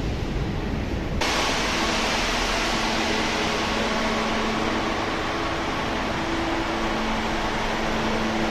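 Steady rushing hiss with a low steady hum inside a metro car of the rubber-tyred Marseille metro, the car's ventilation and equipment running. It starts abruptly about a second in, cutting off the sound of the train outside.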